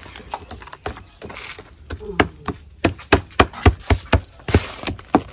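Metal spoon mashing bitter balls and vegetables in a plastic bowl: repeated knocks of the spoon against the food and bowl, quickening to about four a second in the second half.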